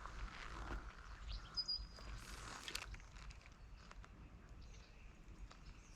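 Faint outdoor ambience: a bird gives one short, high call about a second and a half in, over soft rustles and clicks in the first three seconds, then it goes quieter.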